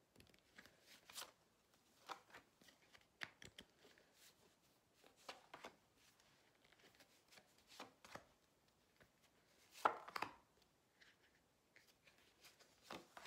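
Oracle cards being drawn from a hand-held deck and laid face down on a table: faint scattered taps and flicks of card on card, the loudest cluster about ten seconds in.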